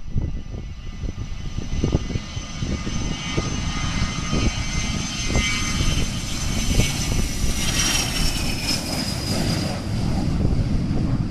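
Learjet 35's twin Garrett TFE731 turbofan engines at takeoff power: a high whine that grows louder and then drops in pitch about eight seconds in as the jet passes. Gusty wind rumbles on the microphone underneath.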